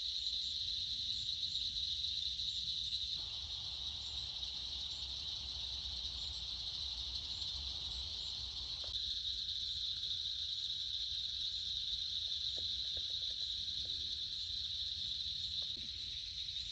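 Steady, high-pitched chorus of night insects chirring without a break, over a low rumble, with a few faint clicks about three quarters of the way through.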